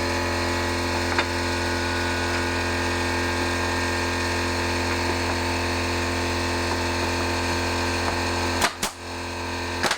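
Steady machine hum with several fixed tones, a faint tick about a second in, and a couple of sharp clicks near the end.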